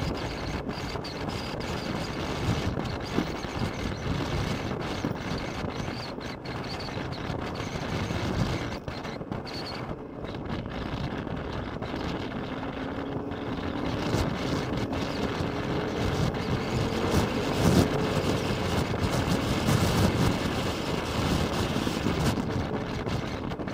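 Honda CX500 V-twin engine running under a ride, mixed with wind buffeting the microphone; about halfway through, coming out of a bend, its note rises steadily as the bike accelerates.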